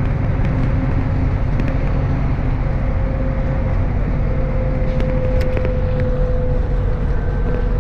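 MAZ-103.486 city bus under way, heard from inside the passenger cabin: a steady low rumble of engine and road noise with a steady whine running through it.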